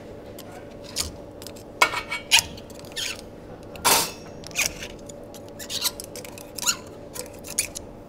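Metal group pick clicking and scraping against the group head of a La Marzocco espresso machine while the last bits of the old rubber group seal are dug out: a string of irregular, sharp clicks and short scrapes.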